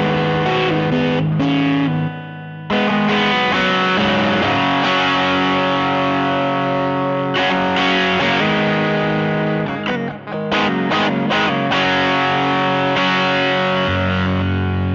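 Fender '52 Telecaster played through a Fuzz Face fuzz pedal into a 1966 Fender Vibrolux Reverb, a tube combo amp, giving loud, fuzzy sustained chords. There is a short break about two seconds in and a choppy, stop-start passage around ten seconds in.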